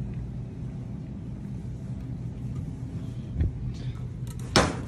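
Low, steady rumble and rattle of a shopping cart rolling over a store floor, with a small thump partway through and a sharp knock near the end.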